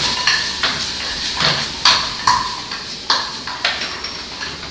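Seafood sizzling in a hot frying pan just after white wine has gone in, the hiss fading, with about seven sharp knocks as the pan is tossed on the gas burner and the clam shells shift inside it.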